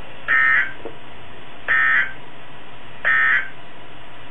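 NOAA Weather Radio SAME digital data bursts: three short, raspy electronic bursts about a second and a half apart, over steady radio hiss. Their brevity marks them as the end-of-message code that closes the weekly test broadcast.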